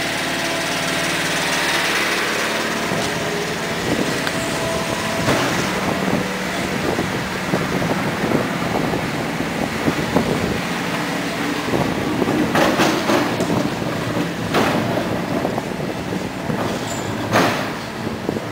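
A motor engine running steadily with a hum of several tones, over a loud rushing noise; a few sharp knocks come in the second half.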